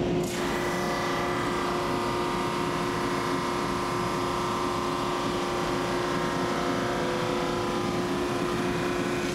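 Drum sander running with an American holly board feeding under its sanding drum. It gives a steady hum, and just after the start a higher, rushing sanding sound joins it as the board goes under the drum.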